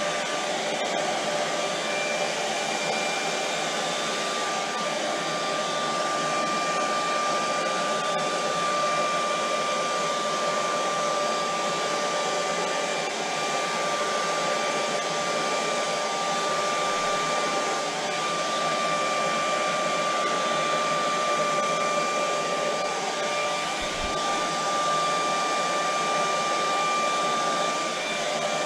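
Hand-held hair dryer running steadily, blowing wet poured acrylic paint across a canvas: an even rush of air with a thin steady whine from the motor.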